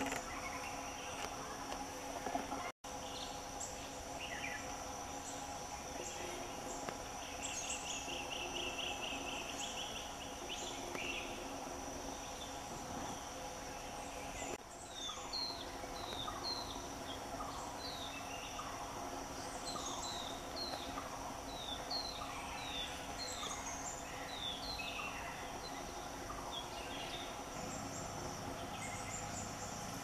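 Forest ambience: a steady high-pitched drone of insects with birds calling over it. A short trill comes about a quarter of the way in, and from about halfway a bird repeats short sharp chirps, one or two a second.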